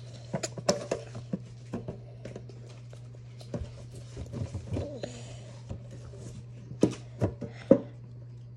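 Fingers tapping and handling a metal Pokémon TCG collector chest tin: a scatter of light clicks and taps, with a few sharper knocks near the end, over a steady low hum.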